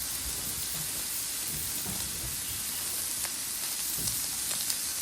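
Meat sizzling on a hot grill, a steady hiss with a few small pops of fat in the second half.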